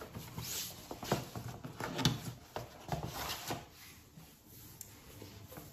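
Cardboard mailer being opened and its paper contents handled: a string of short crackling rustles and rips, busiest in the first three seconds or so, then quieter handling.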